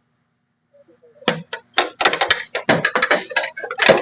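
Metal hand tools clicking and clattering against each other as they are handled in a toolbox drawer. The rattling starts about a second in, after a near-silent moment.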